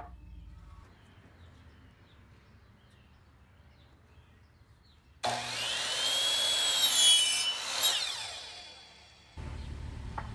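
Electric miter saw cutting a wooden board: it starts suddenly about five seconds in, its whine rises and falls through the cut, then the blade spins down over a second or so. A steady low noise starts near the end.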